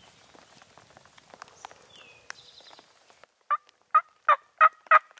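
A series of six loud turkey yelps, evenly spaced about three a second, starting past the middle. Faint rustling comes before them.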